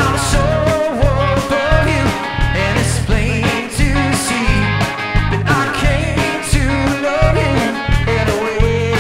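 A live band playing a rock song: drum kit keeping a steady beat under pulsing bass notes and guitar, with a wavering melody line above.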